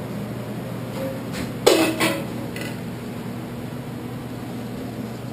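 A sharp knock with a short ringing tone about a second and a half in, followed by a couple of fainter clicks, over a steady low hum.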